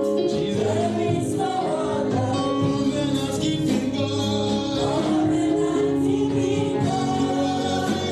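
Gospel worship music: group singing over sustained instrumental chords.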